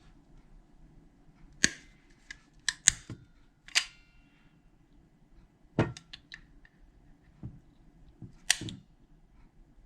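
Small metal tools and lock parts clicking and clinking against each other and the work surface, in about eight irregular sharp clicks. A few of them ring briefly like metal.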